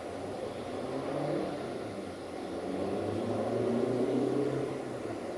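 Diesel rail engine running, its pitch shifting up and down, loudest a little before the end.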